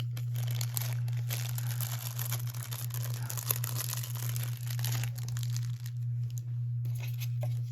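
Craft-kit packaging and papers rustling and crinkling as they are handled, busiest for the first five seconds and lighter after, over a steady low hum.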